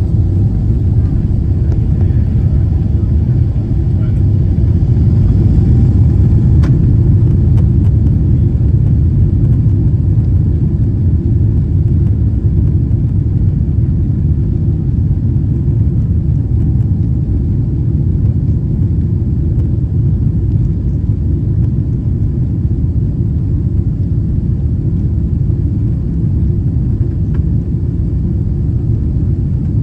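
Steady low rumble inside the cabin of a Boeing 777 during its takeoff roll, jet engines at power and the runway rumble of the wheels blended together, slightly louder a few seconds in.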